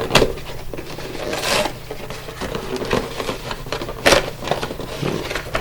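Cardboard collection box being handled and pried open: rubbing and scraping of card, with a sharp knock just after the start and a louder one about four seconds in.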